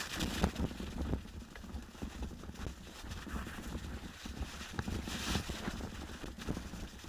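Mountain bike riding over packed snow: tyres crunching with a stream of irregular knocks and rattles from the bike, over a low rumble, with wind hissing on the microphone at the start and again about five seconds in.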